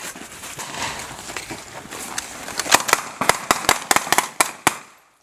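A rapid, uneven string of about ten gunshots over some two seconds, following a stretch of outdoor noise; the sound cuts off suddenly near the end.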